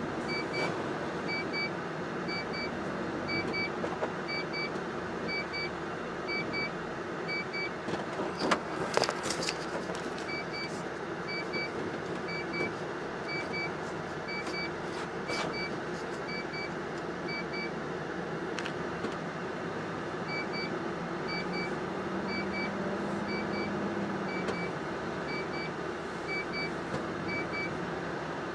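Inside the cab of a MAN TGS 40.480 truck under way, its engine running steadily with road noise, after a new clutch kit. A double beep repeats about every two-thirds of a second, pausing briefly around a few loud knocks about nine seconds in.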